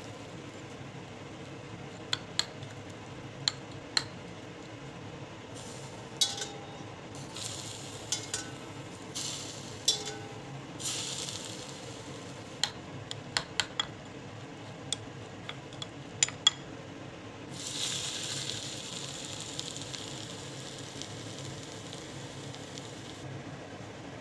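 Hot oil poured over minced garlic and chili flakes in a ceramic bowl, sizzling in several bursts, the longest lasting a few seconds in the second half. A metal spoon clinks sharply against the bowl again and again as the chili oil is stirred.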